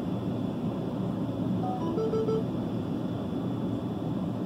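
Steady low engine rumble of idling vehicles, heard from inside a vehicle, with a brief run of short electronic beeps about two seconds in.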